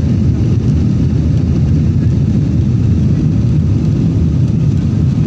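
Passenger jet's cabin noise, heard from inside the aircraft: a loud, steady low rumble of engines and airflow as the plane moves along the runway.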